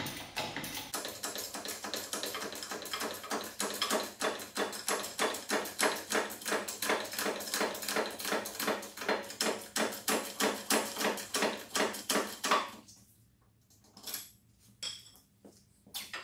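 Hand pump of a hydraulic shop press worked by its long lever, a steady run of metallic clicks about twice a second as the press drives a drive flange onto a wheel bearing's inner race. The pumping stops about thirteen seconds in, followed by a few separate knocks.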